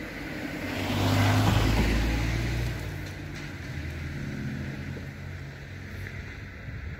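A car passing by on the road, its tyre and engine noise swelling to a peak about a second and a half in and then fading away.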